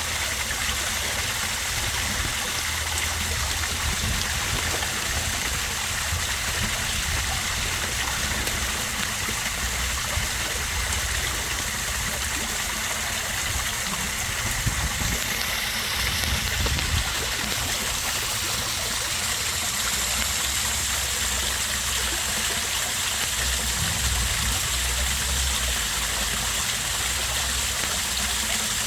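Small waterfall of a backyard koi pond, water splashing and trickling steadily into the pond.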